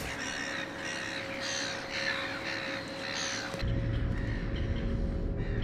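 Birds giving repeated harsh, cawing calls. About three and a half seconds in they stop abruptly and a steady low rumble takes over.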